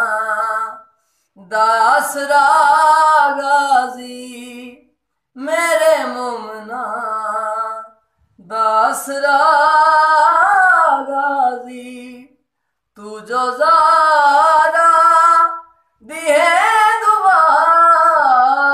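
A man singing a Shia devotional lament in Punjabi, unaccompanied, in long wavering phrases of about three seconds each, with short breaks for breath between them.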